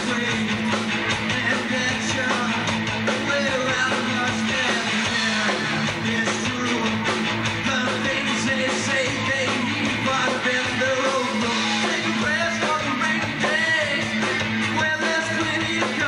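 Live rock band playing: electric guitars, bass guitar and drums, with a man singing lead over them.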